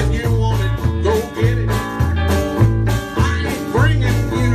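Live band playing a country-blues song: electric guitar lines with bending notes over a steady bass and drum beat.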